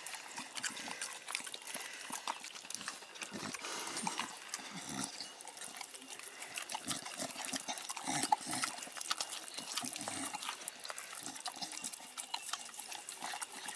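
Two blue Staffordshire bull terriers eating wet food from a plastic bowl held in a person's hands: continuous wet licking, chewing and lip-smacking, with many irregular small clicks.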